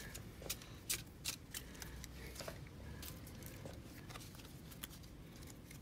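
Magic: The Gathering cards being stacked together and shuffled by hand: a faint run of irregular light card clicks and snaps, busiest in the first half.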